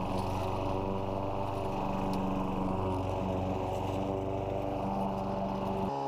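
Craftsman 917 walk-behind mower's 7 hp Briggs & Stratton single-cylinder engine running steadily while mowing grass. Just before the end it cuts off abruptly to a different steady engine hum.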